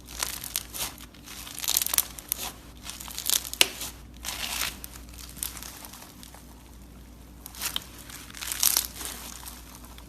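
Slime being squeezed and worked by hand, giving clusters of dense crackling clicks, with a quieter stretch in the middle.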